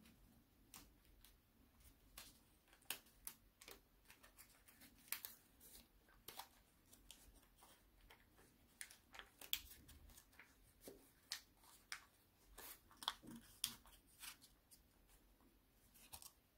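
Faint, irregular crisp crackles and snaps from a sheet of paper being folded and creased by hand.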